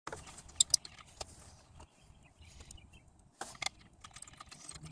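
Small sharp clicks and knocks with a low rustle of handling as a metal oil catch can is held and its hose fittings are worked by hand: a quick pair of clicks about half a second in, another just after a second, and another pair around three and a half seconds.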